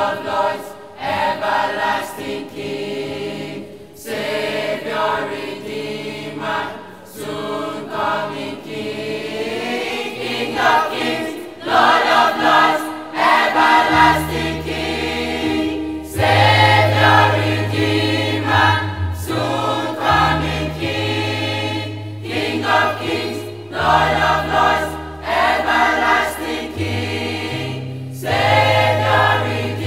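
Mixed school choir of boys and girls singing together. Low held accompaniment notes join about halfway through under the voices.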